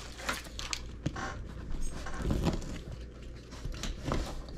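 Hands handling a cardboard box, fingers rubbing, tapping and prying at its lid while trying to get it open: scattered soft knocks and scrapes.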